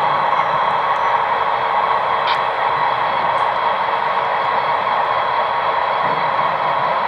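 HO scale model diesel locomotives running slowly through the yard: a steady, even running noise with a faint hum in it, and one light click about two seconds in.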